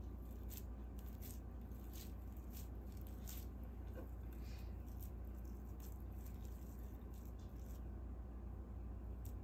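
Hands pressing and patting pieces of thin-sliced Buddig beef onto a soft cream cheese ball, giving faint sticky clicks and pats about once or twice a second over a steady low hum.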